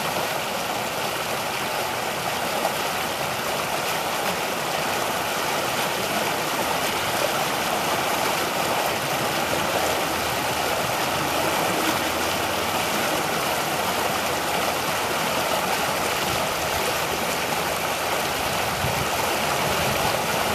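Fast creek water rushing and splashing over a mossy rock and snagged twigs, in spring flow, a steady loud rush.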